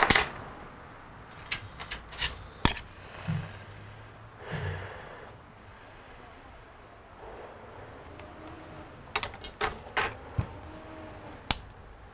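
A laptop's metal display assembly and small hand tools being handled: scattered sharp clicks and taps with some rubbing between, the loudest right at the start and a second cluster about nine to eleven seconds in.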